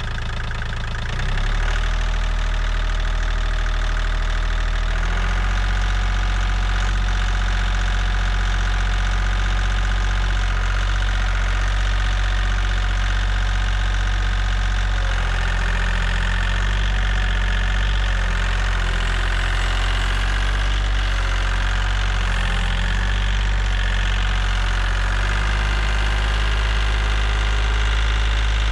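Kioti CK3510 tractor's diesel engine idling steadily, getting a little louder about a second in. It is running again after water was drained from its fuel/water separator and the fuel system was primed.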